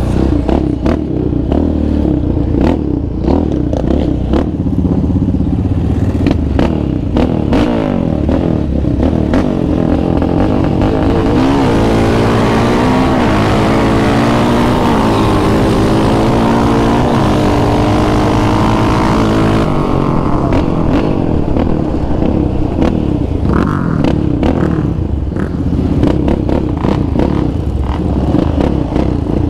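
Yamaha Raptor 700R quad's single-cylinder engine, fitted with an aftermarket Monster exhaust, running as the quad is ridden, with frequent short knocks. About eleven seconds in it speeds up: wind rushes over the mic and the engine pitch climbs and drops through the gears for about eight seconds, then settles back to a slower run.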